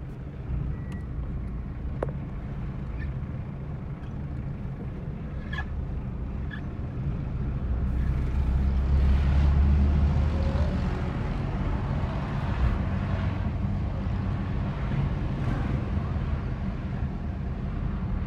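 Car engine and road noise heard from inside the cabin while driving, a steady low rumble that grows louder for a few seconds around the middle and then settles.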